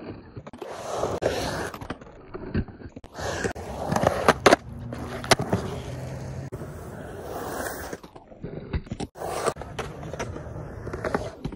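Skateboard on Alva 101A conical urethane wheels and Independent trucks rolling and carving on concrete: a steady rolling rumble with several sharp knocks near the middle, breaking off abruptly a few times.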